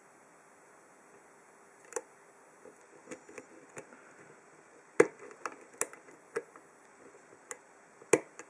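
Irregular sharp clicks and ticks from a Peterson Gem hook pick and tension bar working the pin stack of an Abus 83/45 brass padlock: the pins clicking as they are lifted and set under tension. About ten clicks in all, the loudest about five seconds in and another strong one near the end.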